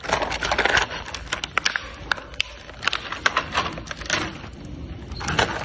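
Hard plastic toy kitchen pieces clicking and knocking together as they are handled and fitted, with a denser rustling, scraping stretch in the first second and again near the end.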